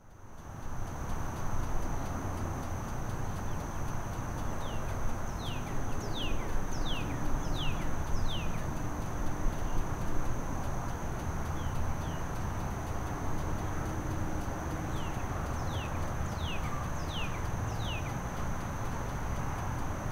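A bird sings two bouts of short, quick, downward-slurred whistled notes, one about five seconds in and one about fifteen seconds in. Under it runs a steady low rumble and hiss with a constant high thin tone.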